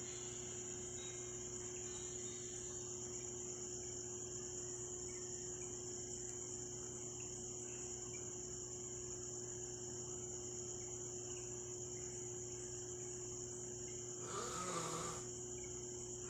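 Steady chorus of crickets chirping, a constant high trill, over a faint low hum. A brief louder sound breaks in near the end.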